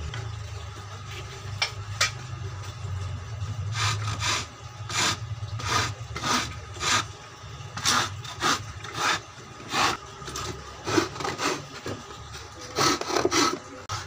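Hand saw cutting a wooden board with back-and-forth strokes, about one to two a second, with a short pause before a last few quicker strokes near the end.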